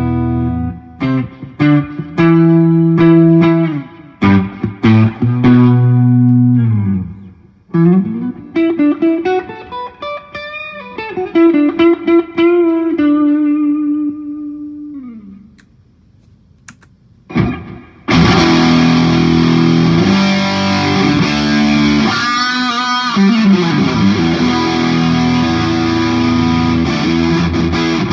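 2019 Knaggs Kenai electric guitar through a Marshall JCM 2000 amp, playing chords and single notes with slides in a lighter tone for about fifteen seconds. After a short pause it comes back about eighteen seconds in with heavily distorted chords.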